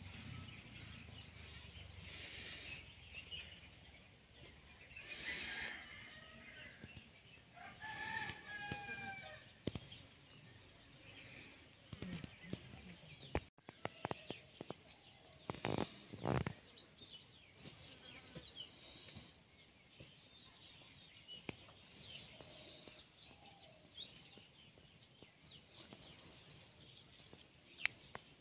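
Outdoor ambience: a rooster crowing twice in the first ten seconds, and a small bird repeating a short, high triple chirp every few seconds in the second half. A couple of sharp knocks come in the middle.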